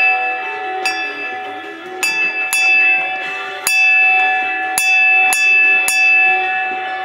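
Small brass ship's bell rung by its rope lanyard: the clapper strikes seven times at uneven intervals, each strike ringing on and overlapping the next.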